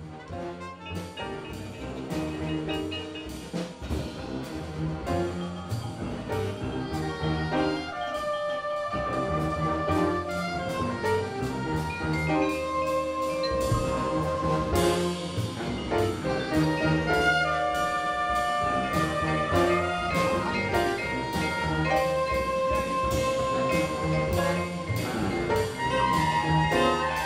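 Instrumental background music with a steady beat, fading in over the first few seconds.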